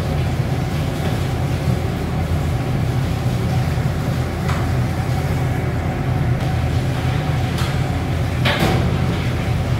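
Steady low rumble of a high-pressure gas wok burner running full, with a few short metal clatters of the spatula and wok against the stove, the loudest about eight and a half seconds in as the wok is lifted.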